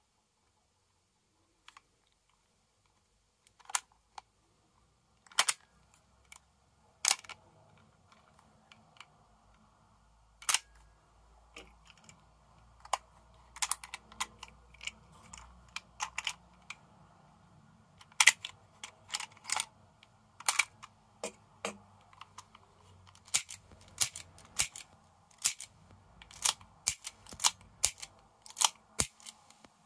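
Sharp metallic clicks and clacks of an Umarex Legends S25 CO2 revolver being handled: the cylinder released and swung out, shells loaded from a speedloader, and the cylinder closed. The clicks come irregularly, starting a few seconds in and coming more often in the second half.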